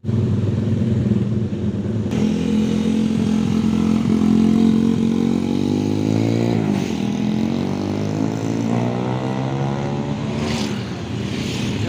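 Honda Tiger motorcycle engine running under way, its pitch rising as it accelerates: a quick climb and drop about six and a half seconds in, as at a gear change, then a steady climb over the next few seconds.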